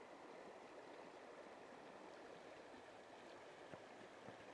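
Faint, steady rush of a shallow river flowing past a stony bank, with a couple of soft ticks near the end.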